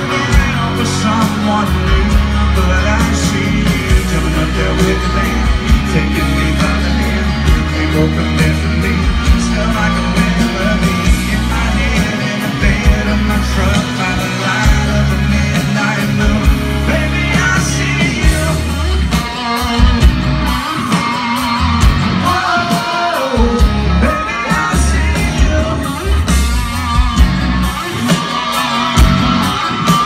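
Live country band playing with a male lead singer over a concert sound system, recorded from within the crowd; loud, with a strong steady drum and bass beat.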